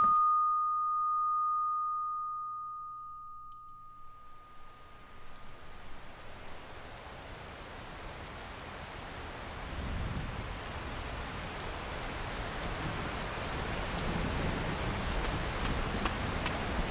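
A single high, steady ringing tone that fades away over the first few seconds, then steady rain that fades in and slowly grows louder.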